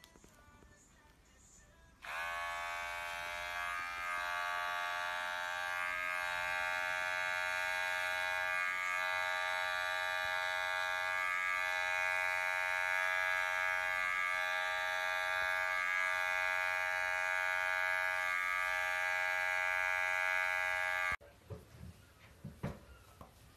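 Electric pet hair clippers switched on about two seconds in and buzzing steadily while shaving a cat's fur, with slight brief dips in the hum now and then; the buzz cuts off suddenly near the end.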